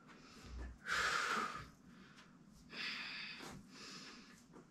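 A woman breathing hard from exertion while holding a forearm plank, with a loud breath out about a second in and a weaker one about three seconds in.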